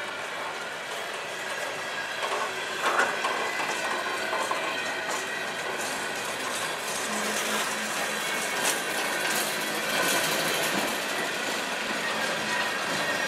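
Freight cars of a passing train rolling by, loaded centerbeam lumber flatcars and then covered hoppers, with a steady rumble of wheels on rail and a thin high squeal from the wheels. Occasional knocks and clanks come through, the loudest cluster about three seconds in.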